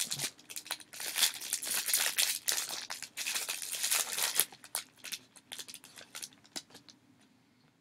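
Foil wrapper of a 2011 Panini Totally Certified football card pack crinkling and tearing as it is pulled open by hand. The crackling is dense for the first four seconds or so, then thins to scattered crackles and dies away near the end.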